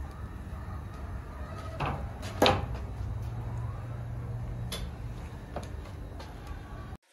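A few sharp clicks and knocks from handling meat and metal skewers, the loudest about two and a half seconds in, over a steady low rumble. The sound cuts off abruptly near the end.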